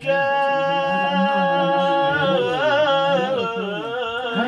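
Unaccompanied voices singing: a high voice holds one long note, then breaks into a wavering, ornamented line about two seconds in, over a lower voice.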